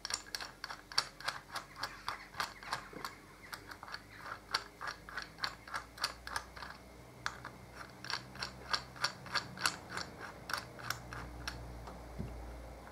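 Hand ratchet clicking rapidly and evenly, about four to five clicks a second, in runs with short pauses, as it undoes the bolts holding the two halves of a Harley-Davidson brake caliper together.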